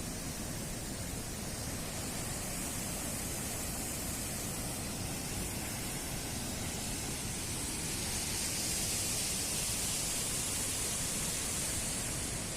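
Waterfall: water pouring down with a steady rushing hiss that grows a little louder about eight seconds in.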